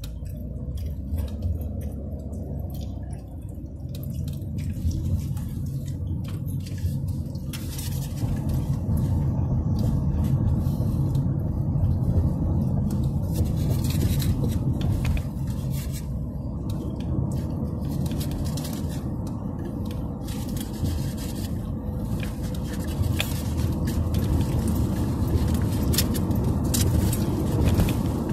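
Car cabin road noise: the steady low rumble of the car driving, getting louder over the first several seconds. Small scattered clicks and crackles sound over it.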